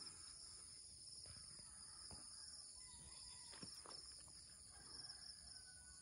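Faint, steady, high-pitched chorus of insects.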